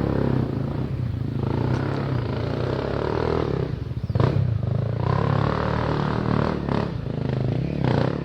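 Single-cylinder trail motorcycle engine running and revving up and down unevenly, with a few sharp knocks and clatters over it.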